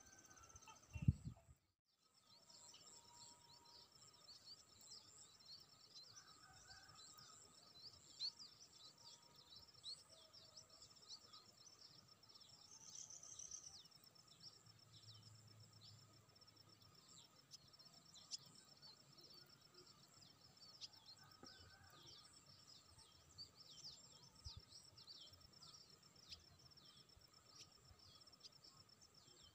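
Near silence: faint open-air ambience with many short, high chirps of small birds over a steady faint high drone. There is one low thump about a second in.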